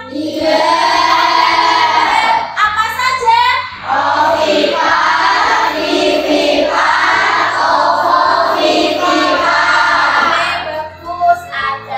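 A group of children singing a song in unison, with a woman's voice singing along.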